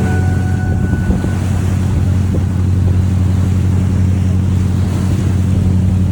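Motorboat engine running at a steady low drone, with wind on the microphone and water noise.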